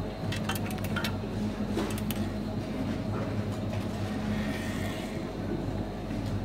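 Supermarket interior ambience: a steady low electrical hum with several light clicks and clinks in the first two seconds.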